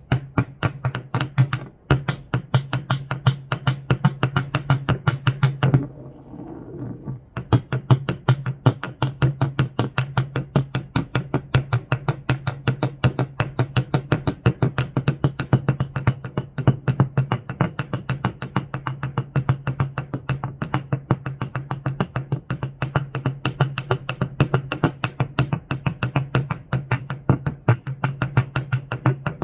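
Rocks struck together in a fast, even run of clicks, several a second, as part of an electronic noise piece, over a constant low electronic hum. The clicking breaks off for a moment about six seconds in, then resumes.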